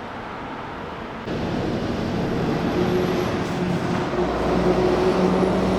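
Motor vehicle engine running, with a steady low hum over road noise. It gets suddenly louder about a second in.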